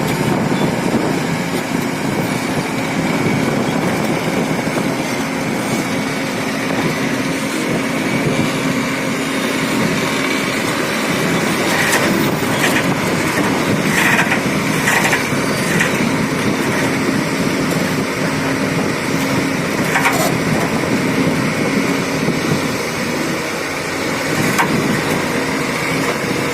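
Heavy earth-working machine running steadily with a low engine hum, with a few sharp cracks and knocks about halfway through and again a little later.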